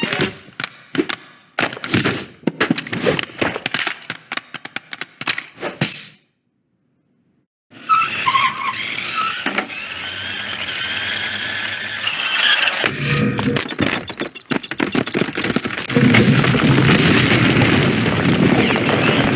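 A string of cartoon sound effects: a quick run of sharp knocks and crashes, a moment of complete silence, then a long noisy stretch with squeals in it that gets louder near the end.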